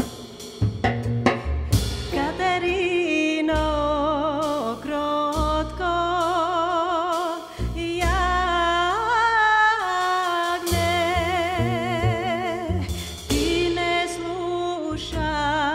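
Live band playing a Macedonian folk song in the Hijaz maqam. Drum hits and double bass open it, then a lead melody with wide vibrato comes in about two seconds in, over tamboura, bass and drums.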